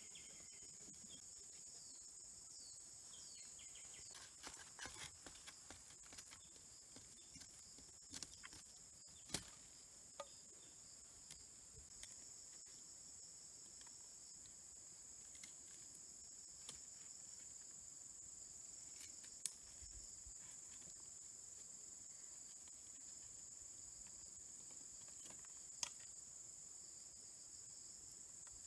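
Faint, steady, high-pitched insect chorus, with a few sharp clicks and taps scattered through it, the sharpest about nine and nineteen seconds in.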